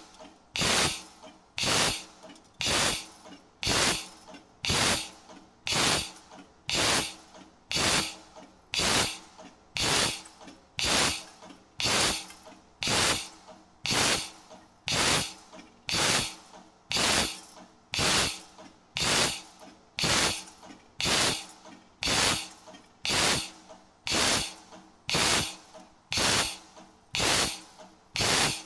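CNC hydraulic hole-punching machine punching square holes in a metal strip, one stroke about every second, each a sharp hissing burst that dies away quickly. A faint steady hum runs underneath.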